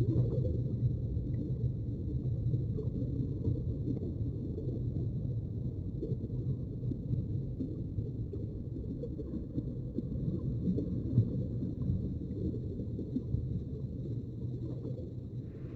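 Underwater ambience: a steady low rumble of moving water with faint scattered clicks.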